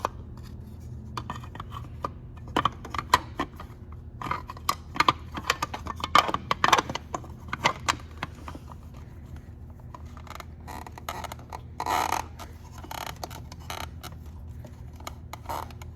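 Spark plug cover on a Honda VTX 1300 engine being handled, lined up and pushed into place: irregular clicks, taps and short scrapes, with a longer rub about twelve seconds in, over a steady low hum.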